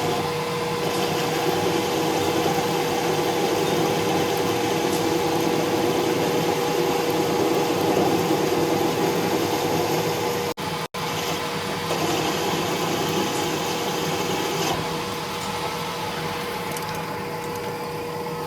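A workshop machine running steadily: a constant hum with a dense grinding noise around it, cut off twice for an instant about ten seconds in.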